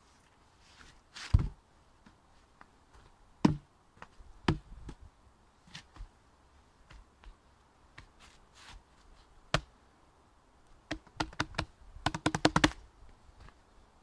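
Wooden knocks and thumps of pine logs being shifted and fitted together by hand, a few scattered ones and then a quick run of knocks near the end.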